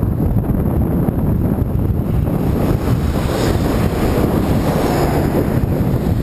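Heavy wind buffeting the microphone of a camera mounted on a moving bicycle, a steady loud rumble. Road traffic passes, with an oncoming semi-truck going by in the second half.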